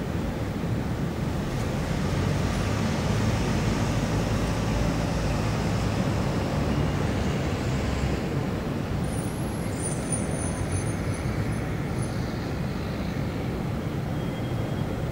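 Steady low rumble of distant city traffic, vehicles on roads blending into one continuous noise.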